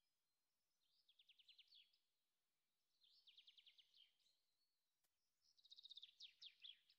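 A small bird singing faintly: three short phrases of rapid chirping trills, each about a second long, the last one the loudest.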